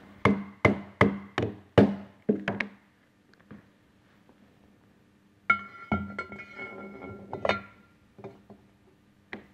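Mallet tapping the bearing cover onto a centrifugal pump shaft: about seven quick, evenly spaced knocks, each with a short metallic ring. About five and a half seconds in comes a single metal clank that rings on for a couple of seconds, followed by a few light knocks.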